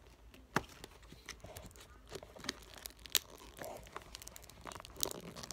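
Stiff plastic toy packaging crinkling and clicking as it is handled and squeezed, with scattered crackles and a few sharper clicks, about half a second in, around three seconds in and near the end.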